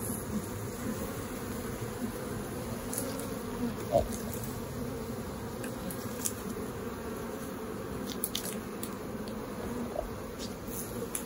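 Honeybee colony buzzing steadily over the open frames of a hive, with one knock about four seconds in and a few faint clicks as the frames are prised loose.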